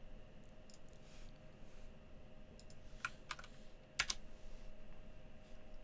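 Faint, sparse keystrokes on a computer keyboard: a handful of separate clicks, a small cluster about three seconds in and the loudest one about four seconds in.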